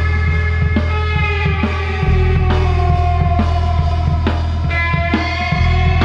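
Psychedelic rock band playing live: drum kit hits over a heavy, sustained bass line, with lead notes that slide and bend in pitch. The bass note shifts about two seconds in and again near the end.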